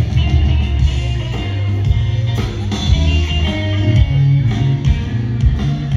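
Live blues band playing through the stage sound system, led by electric guitars over a strong bass line and a steady beat.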